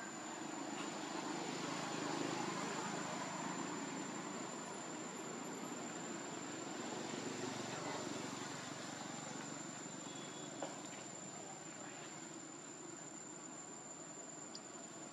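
Steady high-pitched drone of insects over an even background hiss, with one brief click about ten and a half seconds in.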